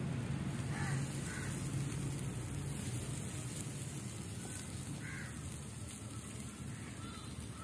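Crows cawing faintly, a few short calls spread across several seconds, over a steady low hum.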